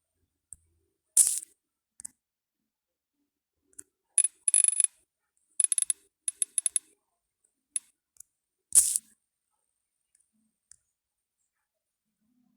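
Samsung Galaxy A01 phone speaker playing short alert tones: a bright chime about a second in, then clusters of quick, high-pitched clinks between about four and seven seconds, and another chime near the end.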